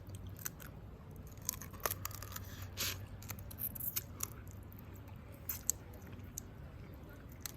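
Crab shell being cracked and crunched while eating: scattered sharp cracks and clicks.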